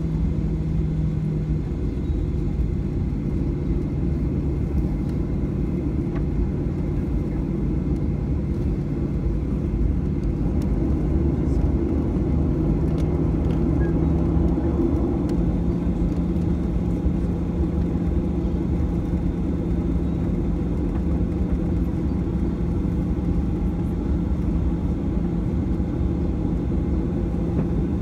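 Steady cabin drone of a Boeing 737-800's CFM56 turbofan engines in flight: a deep rumble with a steady hum whose pitch shifts slightly a few times.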